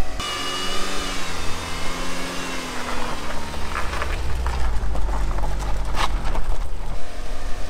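Mitsubishi Lancer Evolution VIII's turbocharged 4G63 four-cylinder idling just after a start, its revs easing down over the first couple of seconds. A sharp knock about six seconds in.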